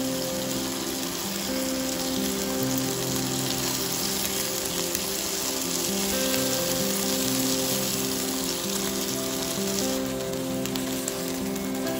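Chicken wings sizzling steadily as they fry in oil in a nonstick wok, with soft background music of held notes.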